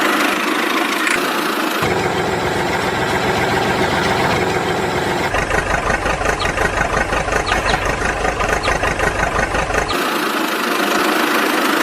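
Engine idling, with a fast uneven throb that grows heavier about five seconds in and eases off about ten seconds in.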